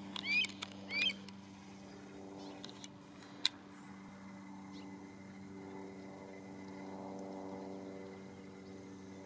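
Red-tailed hawk giving two short, high calls within the first second or so, each rising then falling. A steady low hum runs underneath, and there are a few sharp clicks, the loudest about three and a half seconds in.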